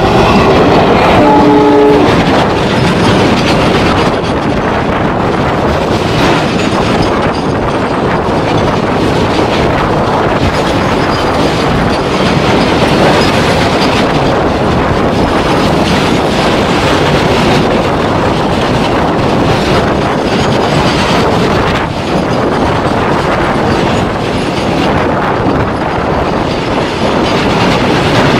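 A WDG4 diesel locomotive passes close by with a short horn blast in the first two seconds. Its long RO-RO train of flat wagons loaded with lorries then rolls past with a steady clatter and rumble of wheels on the rails.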